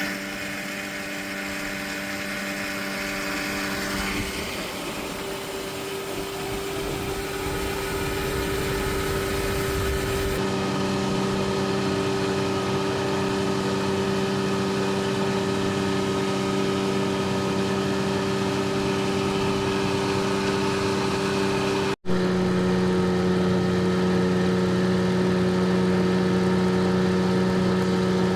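A motor running steadily with an even, pitched hum. It changes abruptly a few times and briefly cuts out about two-thirds of the way through.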